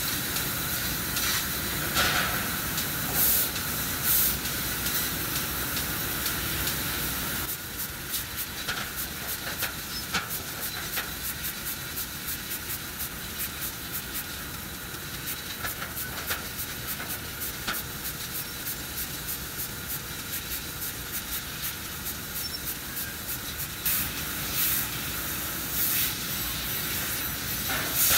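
2000 W fiber laser cutting stainless steel sheet: a steady hiss of gas jetting from the cutting head. About a quarter of the way in, a run of sharp ticks starts, several a second.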